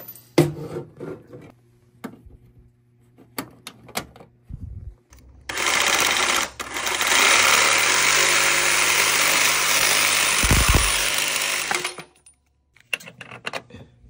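Corded handheld power saw cutting through a short length of steel conduit. The saw runs loudly for about six seconds with a brief dip near the start of the cut, then stops suddenly. A few clicks and knocks of handling come before it.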